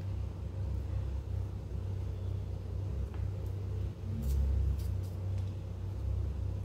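A steady low hum, with a few faint clicks of a kitchen knife cutting a green bell pepper by hand.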